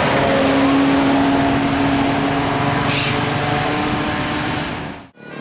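Vehicle engine running with a steady drone and road noise. It cuts off abruptly near the end.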